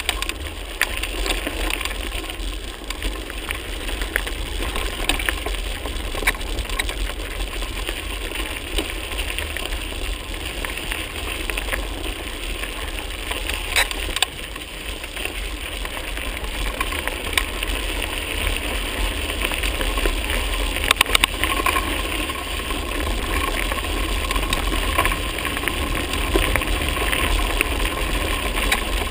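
Mountain bike rolling over a rough gravel track: tyre crunch with scattered clicks and rattles, over a steady wind rumble on the microphone.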